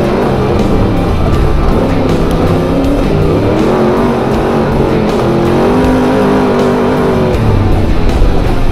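Trophy truck engine revving up and down, with rock music and guitar playing over it.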